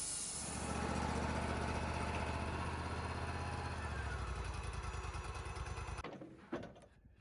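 Portable Wood-Mizer sawmill's engine running steadily, with a hiss of cutting noise over it. About six seconds in the sound cuts off abruptly, followed by a single knock.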